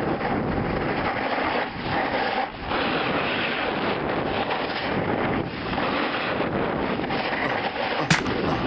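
Steady wind buffeting the microphone of a camera speeding down a snow slope, with the hiss of sliding on packed snow. Near the end, a few sharp clicks.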